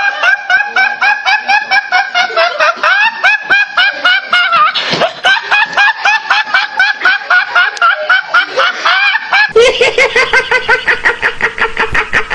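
A man laughing in a long run of short, quick bursts, about five a second, with a honking quality. About three seconds before the end it cuts abruptly to a different, faster laugh held on one pitch.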